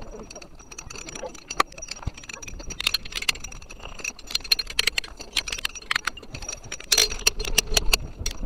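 Rock hammer striking steel chisels into the rock face, sped up in fast motion, so the blows come as a rapid, uneven clatter of sharp clinks and taps.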